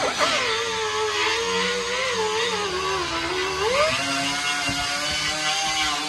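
Right-angle air die grinder with a Scotch-Brite style disc whining as it cleans the steel door skin back to bare metal around a cut-out rust hole. The pitch sags while the disc is pressed against the edge, then climbs back up about four seconds in as the disc is lifted off and spins free.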